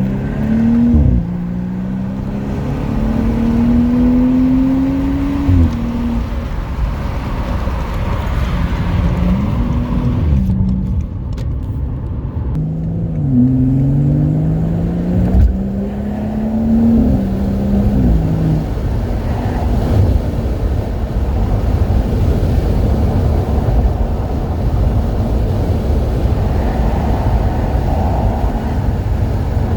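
BMW 540i's B58 turbocharged inline-six with a Dinan free-flow axle-back exhaust, accelerating through the gears: the engine note climbs and drops sharply at each upshift about six times. For roughly the last ten seconds it settles into a steady cruise where road noise covers the engine.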